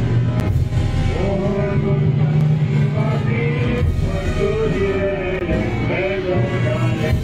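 Band music for a religious procession, a slow melody held in long notes over a steady low bass.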